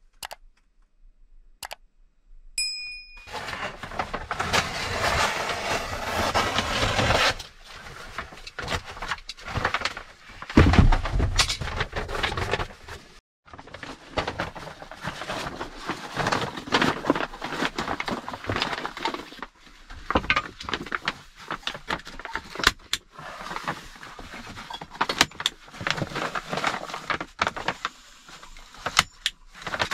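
A large foil sheet crinkling and rustling as it is unfolded, handled and pressed against a log wall. There is a heavy thump about a third of the way in and a few sharp clicks later on.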